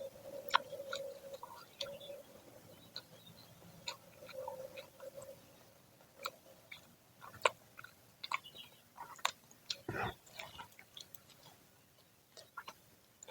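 Close-up chewing of freshly fried gorengan (battered fritters), with scattered crisp crunches and mouth clicks. A faint steady hum runs for the first few seconds, and there is one louder, deeper thud about ten seconds in.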